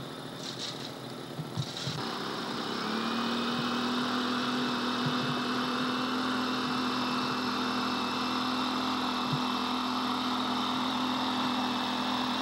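Gas-powered handheld leaf blower running, its small two-stroke engine speeding up about two seconds in and then holding a steady, even drone with a high whine.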